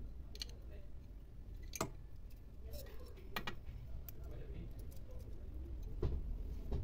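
A handful of scattered light metallic clicks and taps as a wrench and the metal accelerator linkage rod of a sewing-machine servo motor are handled and fitted.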